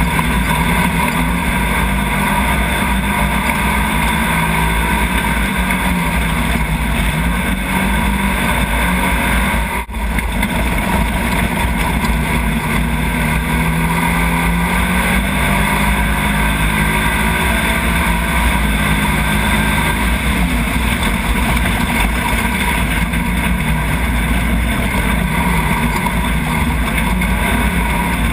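Off-road racing buggy's Nissan VQ35 3.5-litre V6 running hard under race load, its pitch rising and falling with the throttle, over heavy wind and road noise heard from on board. The sound dips for an instant about ten seconds in.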